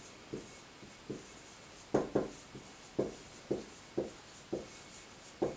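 Marker pen writing on a whiteboard: a run of about a dozen short strokes, roughly two a second, the loudest a pair about two seconds in.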